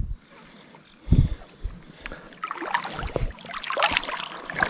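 River water splashing and sloshing as a hooked smallmouth bass is brought to hand. There is a low thump about a second in, and irregular splashing builds toward the end.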